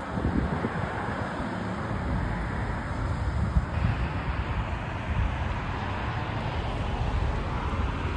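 Road traffic going by on a city street: a steady noise with a low rumble.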